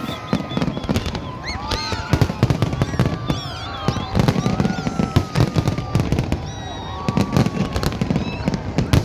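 Aerial fireworks bursting in quick, irregular succession: many sharp bangs and crackles, with high rising and falling tones over them.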